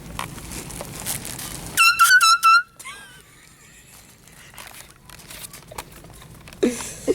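Handheld canned air horn sounded in four quick high-pitched blasts about two seconds in, then cut off abruptly.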